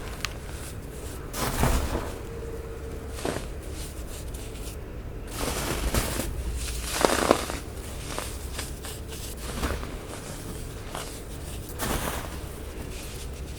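Snowy-textured baking soda being crushed and squeezed, giving soft crunches at irregular intervals; the loudest is about seven seconds in.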